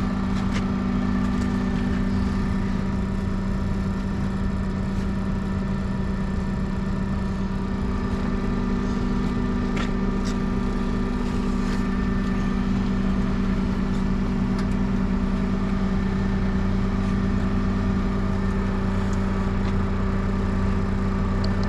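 The engine of the equipment lifting the truck cab runs steadily at a constant speed, with a steady hum and a few faint clicks about ten to twelve seconds in.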